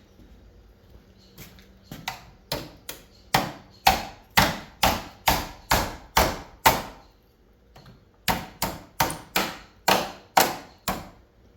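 Hammer blows on an end plate of a mini split air conditioner unit, about three a second. There are two runs of sharp strikes, a dozen or so, then a short pause and about nine more. The plate is being knocked to break it loose and is not coming off.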